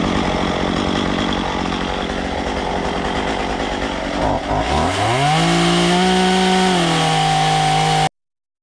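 Stihl MS 193 T top-handle chainsaw with a dime-tip carving bar cutting into red cedar. About four and a half seconds in, the engine pitch dips sharply and climbs back to a steady high rev, and the sound cuts off suddenly near the end.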